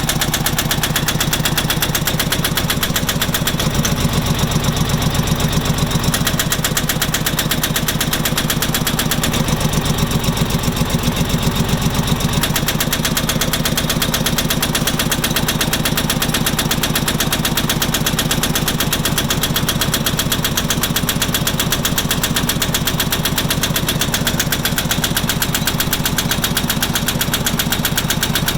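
Farmpro 2425 tractor's diesel engine running steadily with a fast, even knock in its firing beat, which the owner is recording as an engine knock. It gets a little louder twice, a few seconds in and again around the middle.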